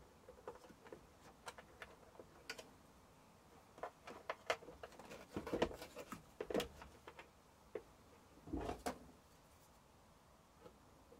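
Irregular light clicks and knocks of the air fryer's plastic housing being handled and fitted back together. There is a busier run of louder knocks about halfway through and a duller, heavier knock toward the end.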